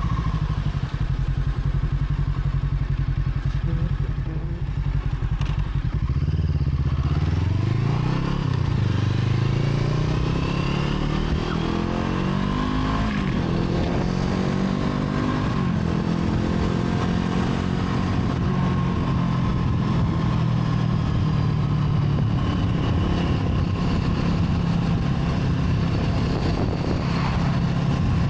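Brixton Crossfire 500's parallel-twin engine running, its revs climbing about six to nine seconds in, shifting again a few seconds later, then holding steady.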